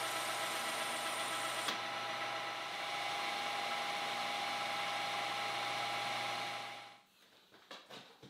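Metal lathe running while a carbide-insert turning tool cuts a brass workpiece: a steady machine whine under the cutting noise. It stops about seven seconds in, followed by a few light clicks.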